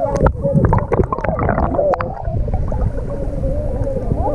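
Sound picked up by a GoPro submerged in its waterproof housing: a constant muffled low rumble of moving water, with a cluster of clicks and knocks against the housing in the first two seconds. Faint, warbling, muffled voices from above the surface come through.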